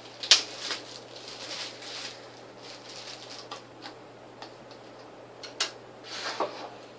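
Hands handling the parts of a desk kinetic sculpture kit: light taps and rustling with a few sharp clicks, the loudest about a third of a second in and another about five and a half seconds in, with a short rustle just after.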